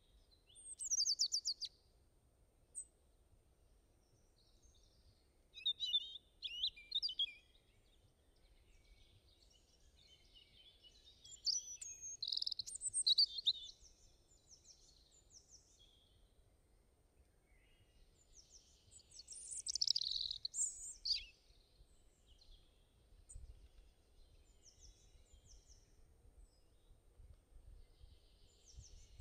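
Small birds chirping in several short bouts, separated by stretches of faint, steady background noise.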